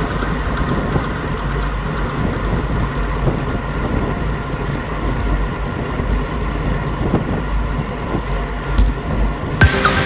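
Strong wind buffeting the microphone: a steady low rumble with gusty noise. Music starts loudly near the end.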